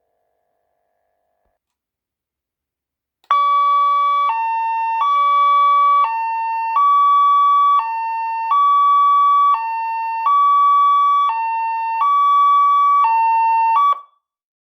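12-volt electronic car siren sounding a two-tone hi-lo pattern, alternating evenly between a higher and a lower tone about once a second. It starts about three seconds in after a silence and cuts off abruptly near the end.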